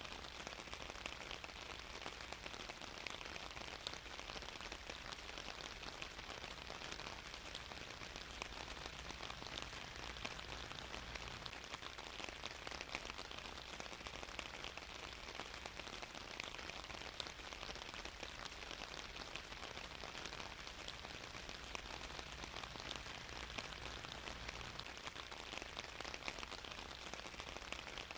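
Steady rain falling as a dense, even patter of drops, with a low rumble underneath.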